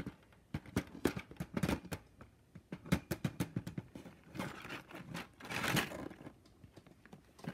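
Small plastic fidget toys being handled and set back into a plastic storage drawer: a run of irregular light clicks and taps, with a stretch of rustling handling noise in the middle.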